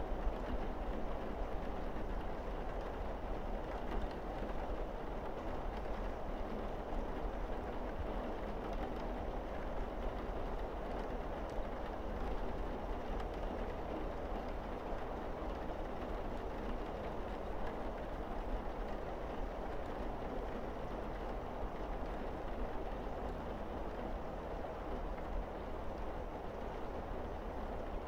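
Steady rain pouring on a roof and windows: an even hiss with a low rumble underneath.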